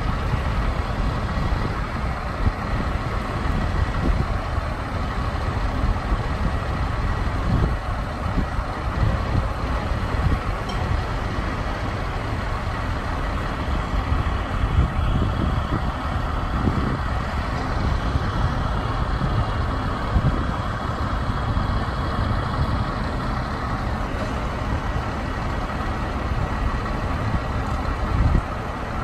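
Heavy diesel engines of the mobile crane and semi truck running steadily, a low rumble with a faint steady high tone above it.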